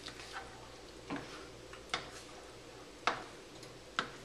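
Metal cooking spoon tapping and clinking against a stainless steel skillet: a handful of short, sharp clicks roughly a second apart.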